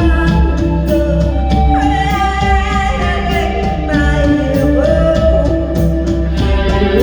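Live band playing a song: a singer holding long notes that slide between pitches, over steady bass and drums.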